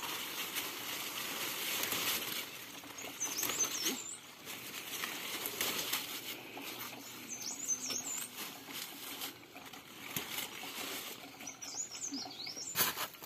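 Large squash-vine leaves rustling and stems snapping as they are picked by hand, with a few sharp snaps near the end. A bird sings a short, high warbled phrase about every four seconds.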